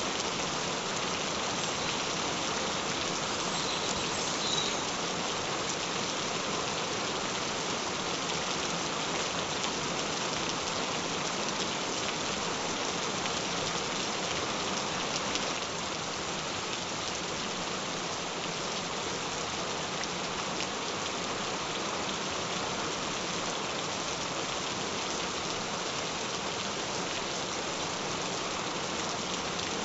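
Gentle rain falling steadily, an even wash of rain noise with no thunder, a little quieter from about halfway through.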